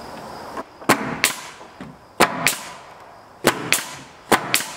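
Pneumatic nail gun firing nails up into wooden soffit boards, about eight sharp shots in quick pairs.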